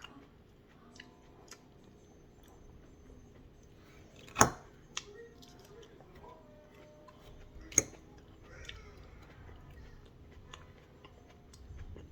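A person quietly chewing a hot pepper, with faint small ticks throughout and two sharp clicks, about four and eight seconds in.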